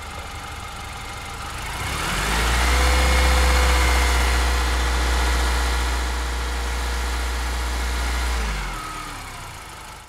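A car driving. Its engine runs low, then picks up about two seconds in as the car accelerates. It holds steady at speed with a strong deep hum, then eases off near the end and fades out.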